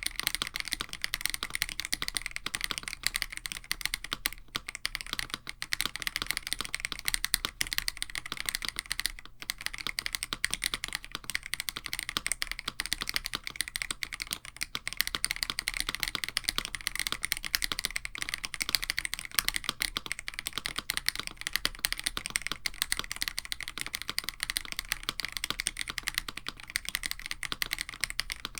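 Fast continuous typing on a mechanical keyboard: a KBD67 Lite with an FR4 plate and AKKO Radiant Red linear switches lubed with Krytox 205g0, under GMK-style keycaps, giving a dense stream of key clacks.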